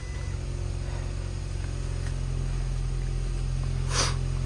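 2006 Scion xB's 1.5-litre four-cylinder engine idling steadily, a low even hum. A brief sharp noise about four seconds in.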